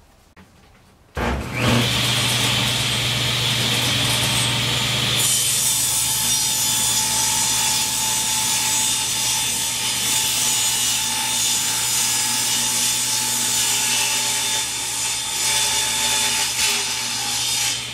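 Table saw switching on about a second in and running up to speed, then ripping a sheet of half-inch plywood from about five seconds in until near the end.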